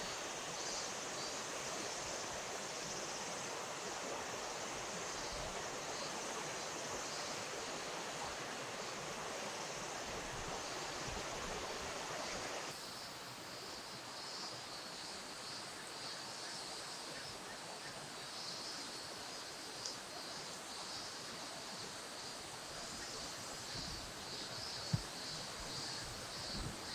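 Steady rush of flowing river water, with a high, rapidly pulsing chirping above it. About 13 seconds in the water noise abruptly drops and the chirping stands out more; a single short tick comes near the end.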